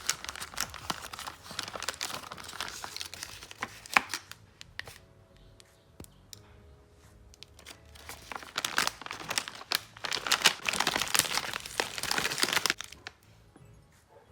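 Candy packets being handled and torn open, the wrappers crinkling and tearing in two spells of handling with a quieter pause between them.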